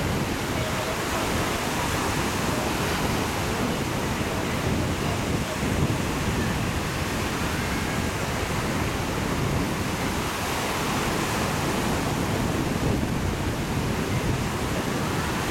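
Steady wash of small sea waves and wind, with wind rumbling on the microphone.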